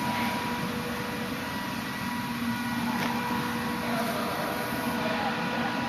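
Steady factory machinery hum in an air-conditioner production-line testing area: a continuous noise with several held humming tones, unchanging throughout.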